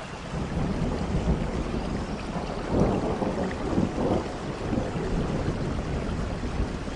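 Thunder rumbling low over a steady hiss of rain, the rumble swelling about three seconds in.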